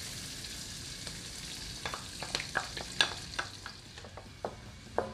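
Diced onion sizzling in melting butter and olive oil in a nonstick wok. From about two seconds in, a wooden spatula stirring it knocks and scrapes against the pan in a run of sharp clicks.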